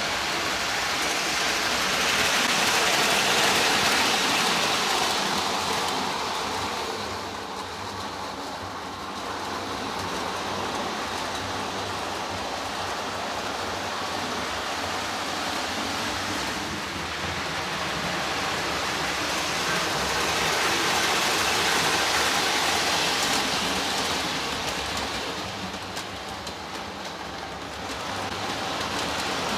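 Lionel Budd Rail Diesel Car O gauge model train running on toy track, with a steady rolling and whirring rumble that swells twice as the train comes close and fades as it moves away.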